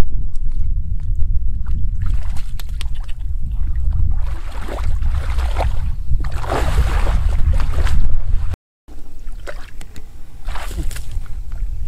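Shallow muddy floodwater sloshing and splashing as a man wades and gropes through it with his hands, loudest in the middle of the stretch. Under it a steady low rumble of wind on the microphone; the sound cuts out for a moment about two-thirds of the way through.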